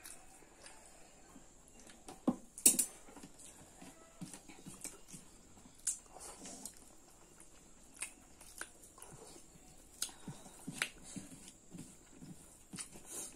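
Mukbang eating sounds: chewing, lip smacks and wet mouth noises as rice and pork curry are eaten by hand, with scattered clicks of fingers in rice against the plates. The loudest is a sharp smack or click about two and a half seconds in.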